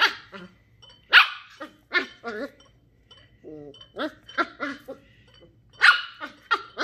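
A 10-week-old Shetland sheepdog puppy yapping, about eight short barks in quick bunches with brief pauses between them.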